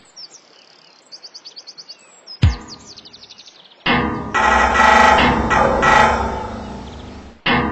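Birds chirping in quick high trills over a quiet background, then a sudden loud thump about two and a half seconds in. Music starts loudly about four seconds in.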